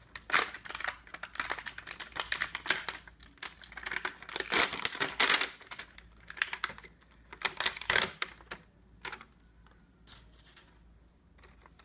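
Plastic pouch of a bedside ABO blood-grouping test card being torn open at its notch and handled, a run of crinkles and crackles. It quietens about two thirds of the way through, leaving only a few faint ticks.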